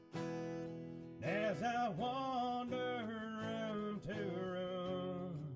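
Country song: an acoustic guitar with a male voice singing drawn-out notes, after a short dip at the start.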